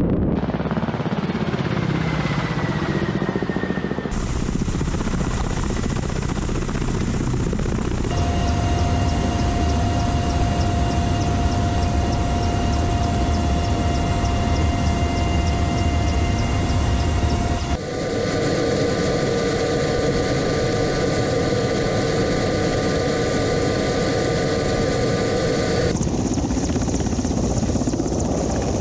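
Military helicopters in flight: rotor and turbine engine noise with a steady high turbine whine. The sound changes abruptly several times, with a different whine each time.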